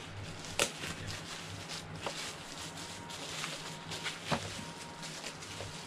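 Bubble wrap and clear plastic wrapping crinkling and rustling as it is pulled off a boxed Funko Pop figure by hand, with a couple of sharper crackles.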